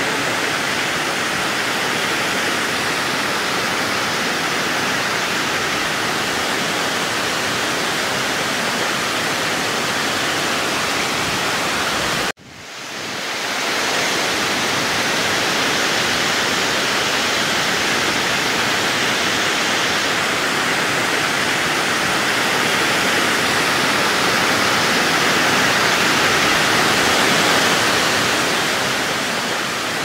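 Waterfall: a steady, even rush of falling water. It cuts out abruptly about twelve seconds in, swells back within a second or two, and fades down near the end.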